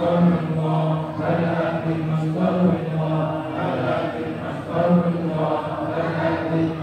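A group of men chanting an Islamic devotional recitation together in unison, on long held notes, one voice leading on a microphone.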